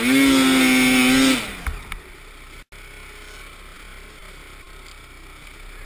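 Snowmobile engine running at high, steady revs for about a second and a half, then dropping away. After that there is only a faint, distant engine and snow noise.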